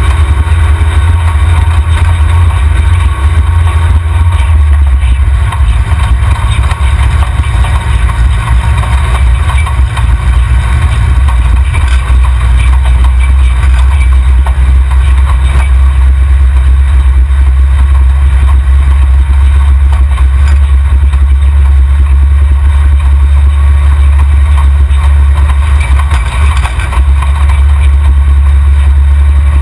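Off-road buggy's engine running with a loud, steady low rumble, heard from a camera mounted under the rear axle.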